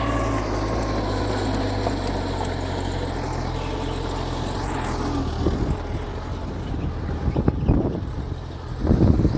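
Mitsubishi G2 bulldozer's diesel engine running steadily under load, joined from about halfway by irregular clanking knocks that are loudest near the end.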